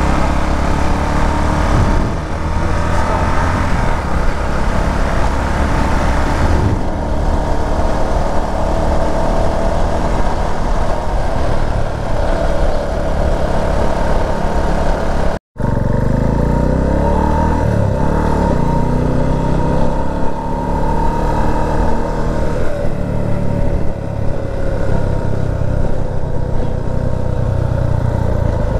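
Single-cylinder Herald motorcycle engine running at road speed under wind rush, its pitch rising and falling with the throttle. The sound cuts out completely for a moment about halfway through.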